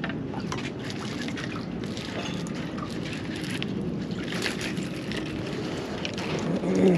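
Steady wash of water lapping and wind noise around the dock, with scattered light clicks and rustles from handling a fishing rod, spinning reel and tackle. A brief louder sound comes near the end.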